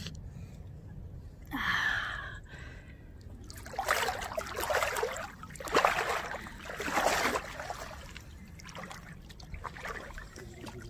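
Lake water sloshing and splashing around a person standing shoulder-deep as she moves, in a few noisy bursts, loudest between about four and seven and a half seconds in, with smaller ones near the end.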